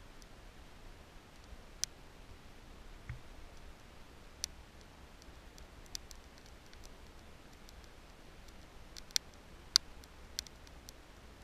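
Small fire of split kindling and feather-stick shavings crackling as it catches, with sharp scattered pops and snaps, the loudest ones a little before the end.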